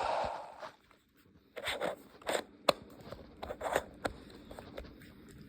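Handling noise from a plastic toy in the hands: a scattering of short scrapes and sharp clicks.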